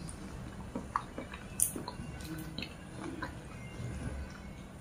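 Close mouth sounds of someone eating satay: chewing, with small wet clicks and one sharper click about a second and a half in.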